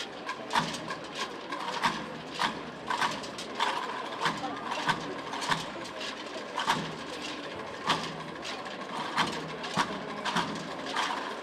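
Irregular sharp metallic clicks and clinks, about one a second, from the silver poles and fittings of a Holy Week paso de palio as the float sways, over a low murmur of crowd voices.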